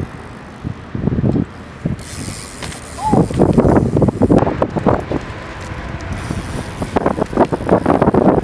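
BMX bikes coasting with their rear hubs clicking, against gusts of wind on the microphone, with a brief squeak about three seconds in.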